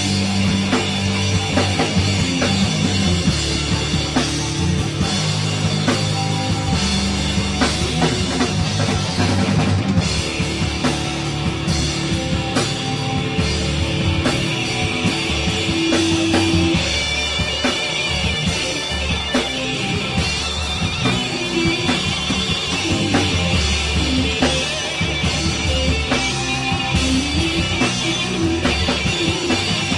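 Rock band playing live, with a drum kit keeping a steady beat under electric guitar.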